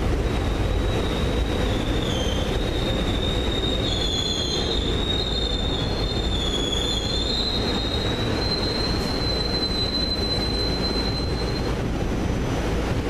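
Train wheels squealing on curved rail: a high, wavering squeal that bends slightly up and down in pitch and stops near the end, over a steady low rumble.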